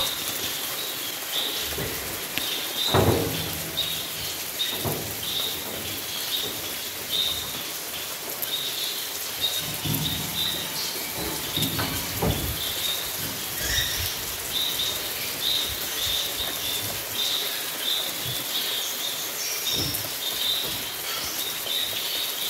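Steady rain hiss with a small bird's short high chirp repeating about once a second. A few dull low thumps stand out, the loudest about three seconds in.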